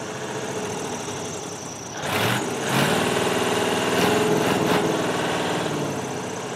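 Old V8 diesel truck engine driving a long-tail boat's propeller shaft, running steadily. It grows louder about two seconds in and eases off toward the end.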